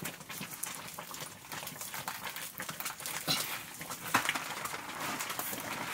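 A ladle stirring thick nettle curry in a wok over a wood fire, scraping and knocking against the pan, with the sharpest knocks about three and four seconds in.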